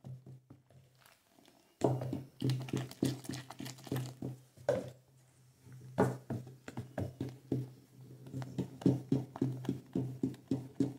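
A wooden spoon stirs thick homemade detergent in a plastic tub, knocking and scraping against the sides several times a second. The stirring goes quieter briefly about a second in, then resumes and keeps a fast, even rhythm.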